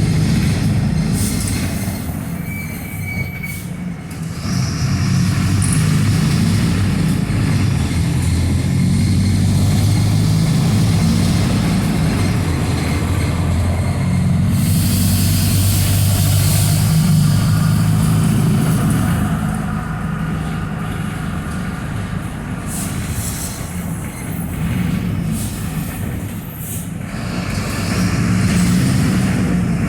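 Mercedes-Benz OF-1721 BlueTec 5 bus's diesel engine running under way, its drone easing off and picking up again several times, with squeaks and rattles from the moving bus. A loud hiss of air lasts a couple of seconds about halfway through.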